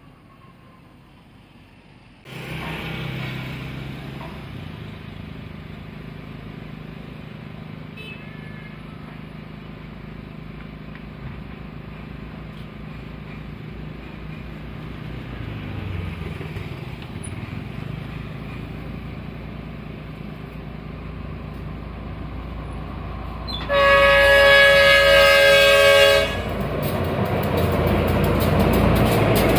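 Diesel passenger train approaching, its low engine rumble slowly growing louder. About 24 seconds in, a long horn blast of two to three seconds. Near the end, the louder rumble and clicking of the locomotive's and coaches' wheels as the train crosses a steel truss bridge.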